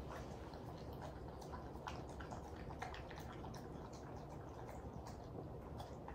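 Elderly golden retriever eating from a bowl, slowly and between rests: faint, irregular wet clicks of chewing and licking over a low steady hum.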